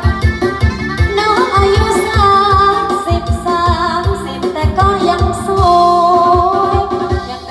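Music: a song with a voice singing held, sliding notes over a steady beat.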